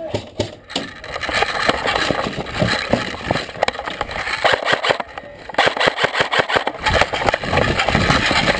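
Airsoft gun firing in long rapid bursts, a fast mechanical rattle with a short break about five seconds in.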